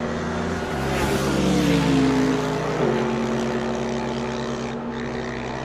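Racing engine sound effect in an intro. The engine's pitch falls for a couple of seconds, then it holds a steady note.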